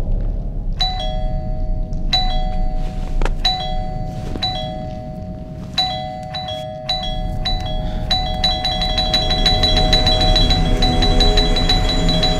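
Horror film score: bell-like chime notes ring out at an even, slow pace over a low rumbling drone, then quicken into a dense tinkling run about eight seconds in.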